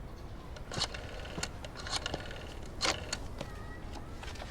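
Scattered light clicks and taps, about six irregularly spaced over a few seconds, with a faint wavering tone near the end.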